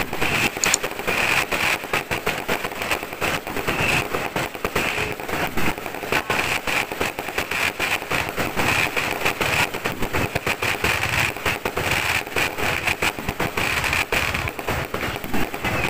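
Fireworks and firecrackers going off in a dense, unbroken rattle of many sharp pops and bangs a second.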